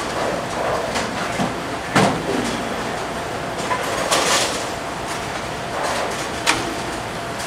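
Bowling alley din: a steady rumble of rolling balls and machinery, with pins clattering and sharp knocks of balls and pins. The loudest knocks come about two seconds and six and a half seconds in.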